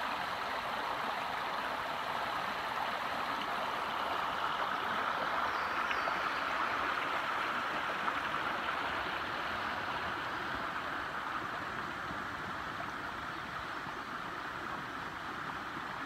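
A small stream flowing, a steady rushing babble of running water.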